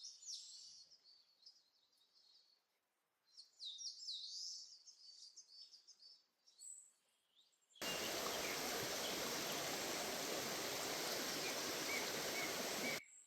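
Small birds chirping and twittering in short high phrases, with quiet gaps between. About eight seconds in, a steady even rushing noise cuts in abruptly, louder than the birds, and cuts off just as abruptly about five seconds later.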